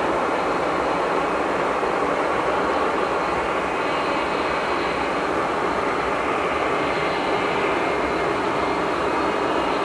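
Boeing 737-800's CFM56 turbofan engines running at low taxi thrust as the jet rolls along the taxiway: a steady rushing hiss with a faint high whine.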